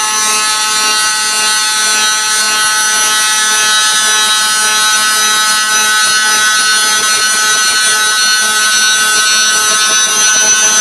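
Cylindrical grinder's grinding wheel facing the end of a cylindrical workpiece: a steady, high-pitched whine made of several tones.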